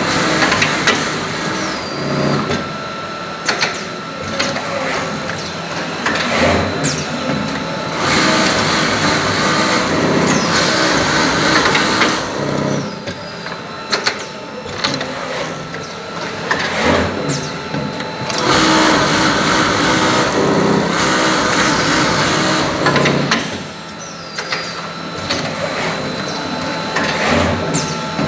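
Industrial automatic pocket sewing machine running through repeated cycles: stretches of fast machine stitching alternate every few seconds with quieter spells, with sharp mechanical clicks throughout.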